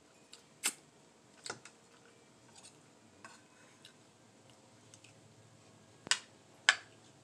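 A spoon clinking against a bowl of rice: a few sharp, separate clicks, the two loudest close together near the end.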